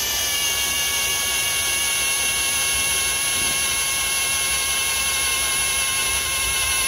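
Cordless drill running steadily with a twist bit cutting into the sheet-steel door pillar of a 60-series Toyota Land Cruiser; a steady, even-pitched motor whine, the bit not yet through the metal.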